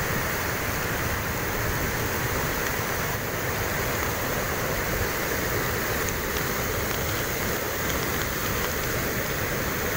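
Fast-flowing muddy floodwater rushing down a swollen river channel, a steady noise of water in spate.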